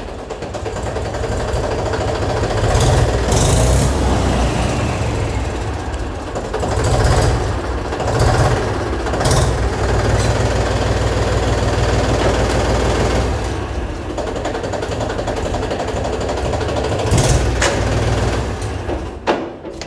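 Tractor diesel engine running, heard from the driver's seat with a steady low knocking rumble and a few sharp knocks, the tractor being moved; the sound drops away near the end.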